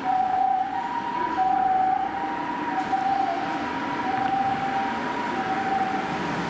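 Japanese ambulance's two-tone siren on an emergency run, alternating a high tone and a slightly lower one about every two-thirds of a second, over steady road noise. It grows slightly fainter in the second half.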